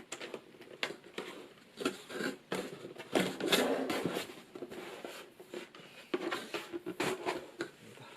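A keyboard's cardboard box and packaging being opened and handled by hand: irregular taps, scrapes and rustles, busiest about three seconds in.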